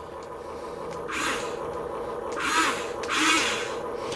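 RC Caterpillar construction vehicle running, its simulated engine sound humming steadily, with three short hissing, whirring bursts about one, two and a half and three and a quarter seconds in as its working parts are moved.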